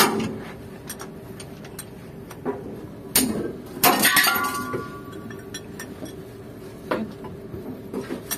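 Metal parts and tools clinking and knocking while a truck's torque rod is fitted to its bracket: a sharp strike at the start, a cluster about three to four seconds in that rings briefly, and another near the end.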